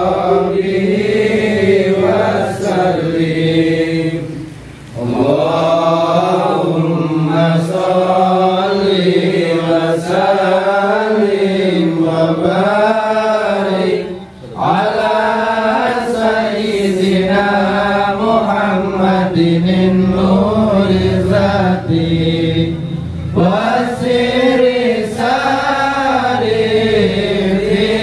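Islamic devotional chanting in long, melodic sung phrases, with brief pauses for breath about four and a half and fourteen and a half seconds in.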